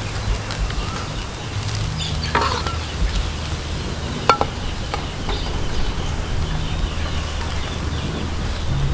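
Domestic fowl clucking briefly a few times over a steady low rumble.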